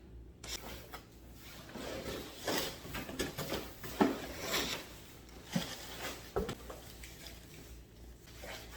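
A package being handled and opened: irregular rustling and scraping of packaging, with a few sharp knocks, the clearest about four seconds in and two more a little later.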